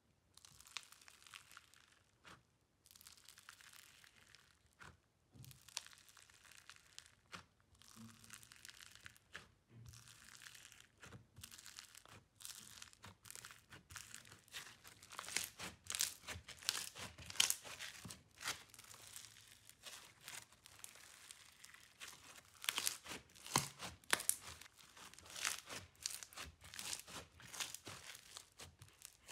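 Blue foam-bead slime (floam) crackling and popping as fingers press and squish it in a plastic tub, then knead it by hand: a dense run of small crisp crackles that grows louder about halfway through.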